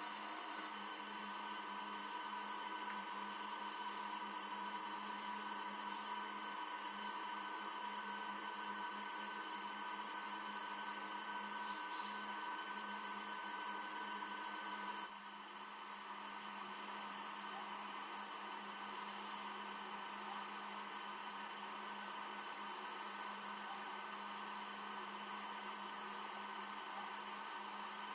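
A steady drone of several even, high-pitched tones over a hiss. It drops slightly in level about halfway through.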